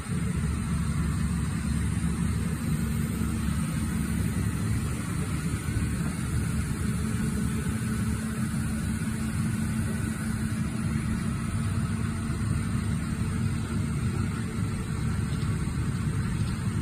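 Kato HD1430V excavator's diesel engine running steadily, with a low, even hum that does not change.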